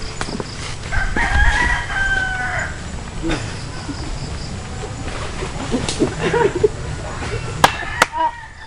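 A rooster crowing once, a long call about a second in. Near the end come two sharp cracks as a wooden paddle is swung.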